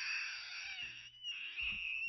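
Baby macaque crying with a high-pitched, drawn-out screech that breaks off for a moment just past the middle and then starts again.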